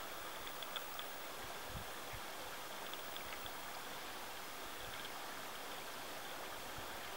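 Faint, steady rush of running water at a beaver pond, with faint high chirps now and then.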